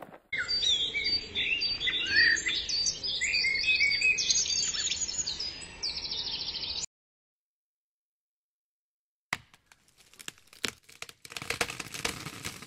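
Songbirds chirping and singing, many short rising and falling calls overlapping, cutting off abruptly a little past the middle. After a silent gap, a dry crackling and rustling of close-set clicks starts and grows louder near the end.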